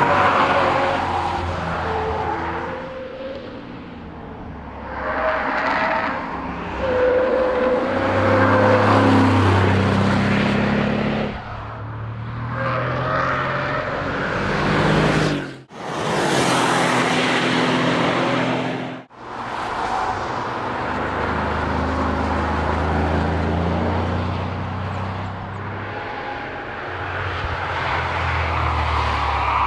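Camouflaged Mercedes-Benz S63 AMG Coupe prototype's twin-turbocharged V8 being driven hard past, the engine pitch climbing under acceleration and dropping with gear changes and lifts, over several passes. The sound breaks off abruptly twice about halfway through.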